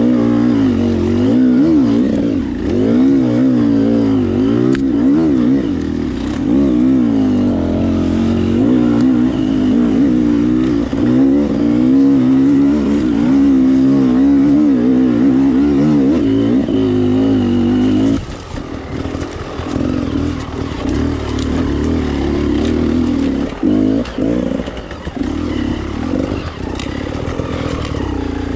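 Enduro motorcycle engine revving up and down, its pitch rising and falling every second or so. About two-thirds of the way through it eases off and runs quieter and more unevenly.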